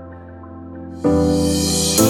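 Intro background music: soft sustained synth-like tones, which about a second in turn suddenly louder and brighter as more instruments come in.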